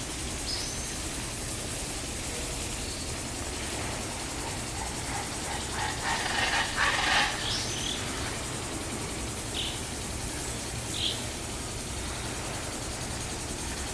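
Birds chirping: scattered short, high calls, busiest about six to seven seconds in, over a steady low background hum.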